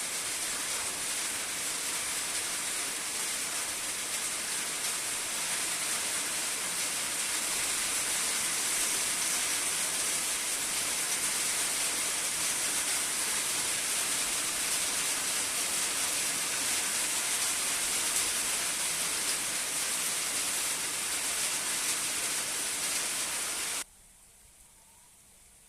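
Heavy rain falling in a steady, dense hiss, which cuts off suddenly near the end.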